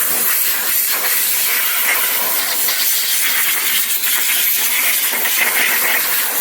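Compressed air blowing water off a freshly pressure-washed aluminum wheel: a steady, loud hiss.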